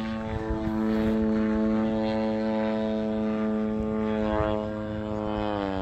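Extreme Flight Laser RC aerobatic plane in flight, its motor and propeller giving a steady droning tone that drops in pitch near the end.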